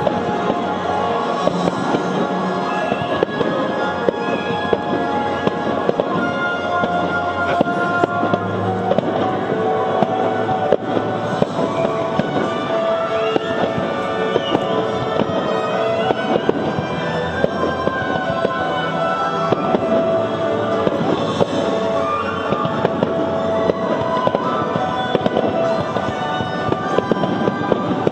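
Fireworks display: aerial shells bursting in quick, continuous succession with crackling, over music playing throughout.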